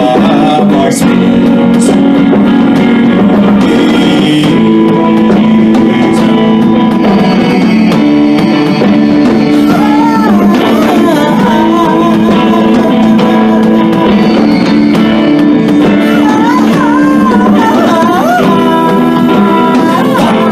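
Live band playing a song, led by guitar, with pitch-bending melodic lines partway through.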